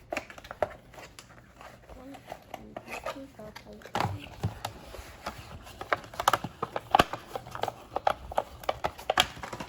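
Plastic toy packaging and toy parts being handled: irregular crinkling with many sharp clicks and taps, the loudest about four, seven and nine seconds in.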